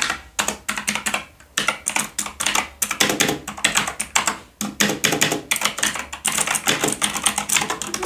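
Typing on a Kmart mechanical backlit gaming keyboard with blue switches: a rapid, irregular stream of clicky keystrokes.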